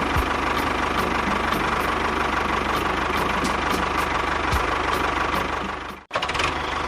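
A DIY mini tractor running steadily with an engine-like idle and a regular tick about two or three times a second. It cuts out briefly near the end, then resumes.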